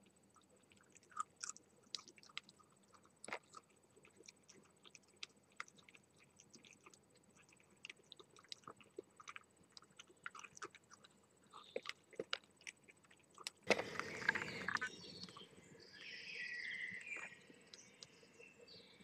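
Red fox chewing and crunching food on the ground: an irregular run of small, sharp clicks and crunches. About fourteen seconds in, a short, louder rush of noise breaks in.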